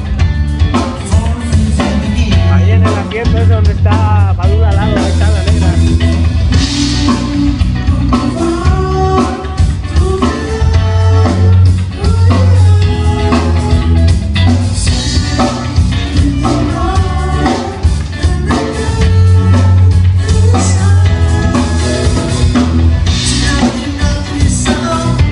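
A live band playing a song: drum kit, a strong steady bass line, guitar and a singing voice.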